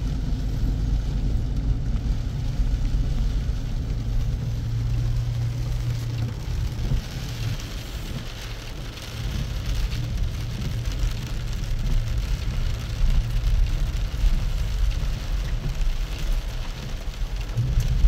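Car driving slowly on a wet lane in the rain, heard from inside the car: a low engine and road rumble under a hiss of rain and wet tyres. The hiss grows louder about seven seconds in.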